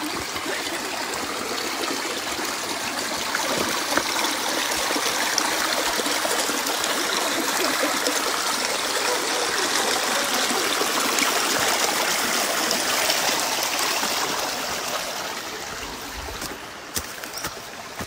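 Shallow rocky stream running over stones, a steady rush of water that fades away over the last few seconds. There are a few sharp knocks near the end.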